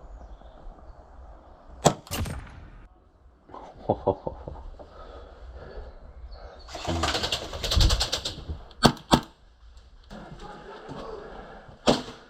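Sharp cracks from an Action Army AAP-01 gas-blowback airsoft pistol firing: single and paired shots, and a rapid full-auto burst of about a second and a half roughly seven seconds in. Gear rustles between the shots.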